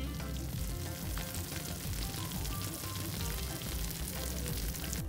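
Steady crackling, sizzle-like noise over soft background music.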